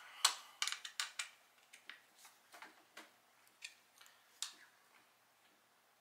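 Irregular light clicks and knocks, several close together in the first second, then fewer and fainter: a kids' bike's loose headset knocking as the fork is rocked back and forth. The play comes from a headset nut left loose at pre-assembly, a wobble that would wear out the bearing quickly.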